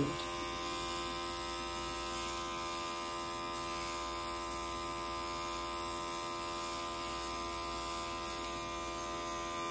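Airbrush compressor running with a steady electric buzz, with a faint hiss of air from the airbrush as it sprays.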